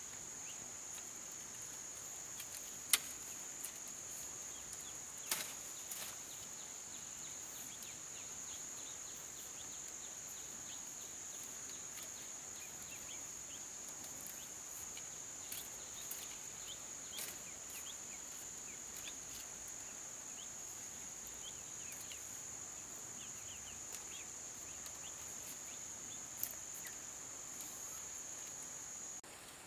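A steady, high-pitched insect drone, with a few sharp knocks (the loudest about three and five seconds in) and faint short chirps scattered through. The drone drops away just before the end.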